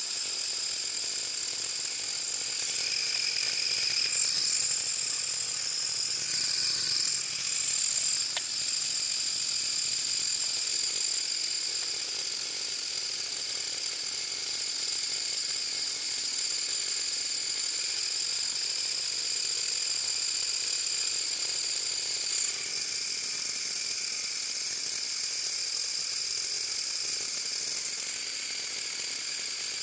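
Motorized Lego Technic material handler running: its small electric motors and motor-driven pneumatic compressor give a steady high whine over a buzzing rattle. A few seconds in the pitch wavers as the machine works, and about two-thirds through part of the whine drops away.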